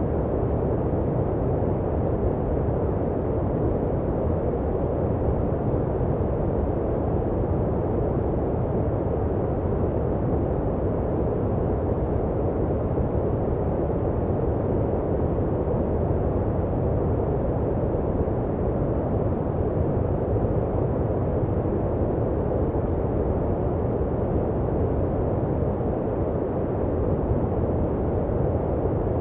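Steady generated sleep noise of the white-noise-machine kind, deep and muffled rather than hissy.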